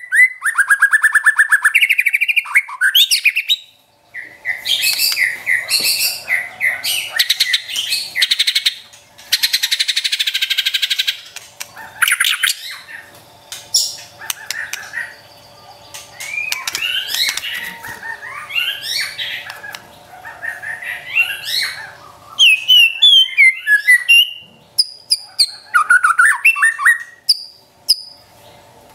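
White-rumped shama (murai batu) singing a loud, varied song. It opens with fast ticking 'trotol' trills, has a harsh rasping phrase about ten seconds in, then moves to sliding whistled notes and quick chattering phrases near the end.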